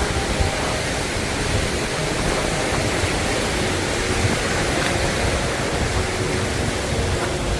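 Steady rushing noise of wind and surf at the seashore, with the wind buffeting the microphone.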